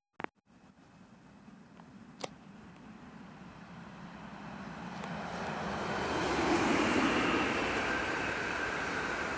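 An electric passenger train approaching and passing close by, its rushing rumble building steadily to a peak about two-thirds of the way in and staying loud. A sharp click just after the start and another about two seconds in.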